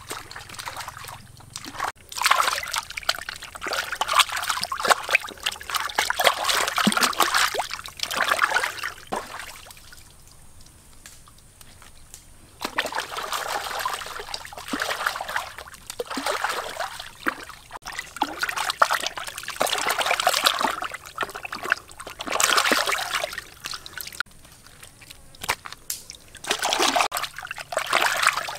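Hands splashing and sloshing in shallow stream water while rinsing gutted fish, in bouts of several seconds separated by short pauses.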